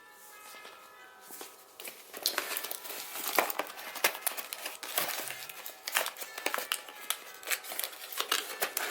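Packaging crinkling and rustling as a box is unpacked by hand, starting quietly and turning into a dense run of crackles and clicks about two seconds in.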